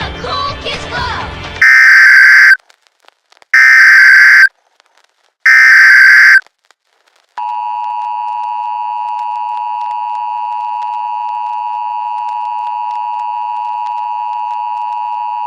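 Emergency Alert System broadcast opening. After a moment of music, three loud SAME digital header bursts sound, each a harsh data screech about a second long, a second apart. Then comes the steady two-tone EAS attention signal, held unbroken.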